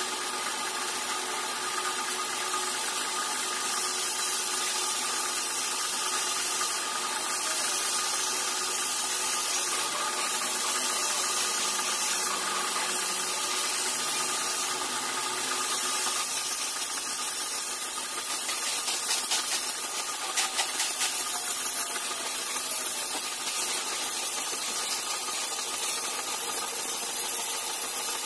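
Metal lathe running steadily, spinning a large disc-shaped metal workpiece: a constant machine whine over a steady hiss.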